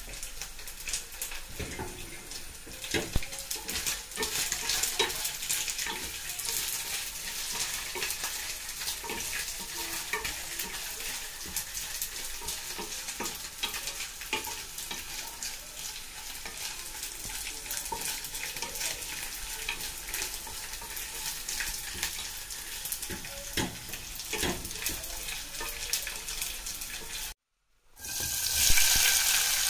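Cooking oil frying in a pot: a steady sizzle with scattered small pops. Near the end it cuts out briefly, then dried anchovies are tipped into the hot oil and the sizzle comes back louder.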